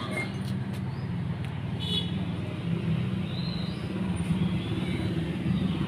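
A motor vehicle engine running steadily nearby: an even, low rumble.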